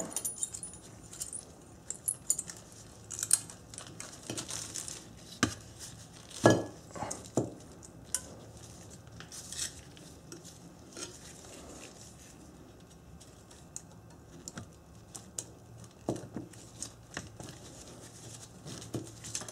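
Scattered metal clicks and clinks of brake pad hardware clips being pried and pressed into a Honda Accord caliper bracket, with a few louder taps of metal on metal.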